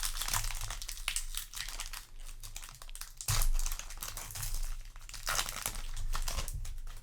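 Foil booster-pack wrapper crinkling as it is handled, in several bursts of crackle.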